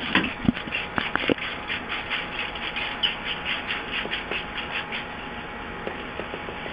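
Plastic sweet wrappers crinkling and rustling as a hand stirs through a pile of wrapped candies, with a few thumps in the first second or so. The rustling eases off about five seconds in.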